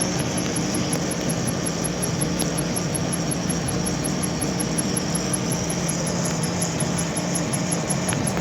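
Metalworking machinery running steadily: a constant mechanical hum with a few low steady tones and no breaks or strokes.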